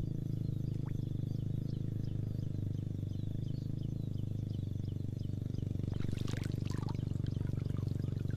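Steady low rumble with faint high chirps repeating about twice a second; about six seconds in, a brief burst of splashing as a small hooked tilapia (mujair) thrashes at the water surface.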